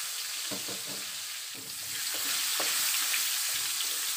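Sliced onions just dropped into hot oil in a wok, sizzling steadily with scattered faint crackles, getting louder about halfway through.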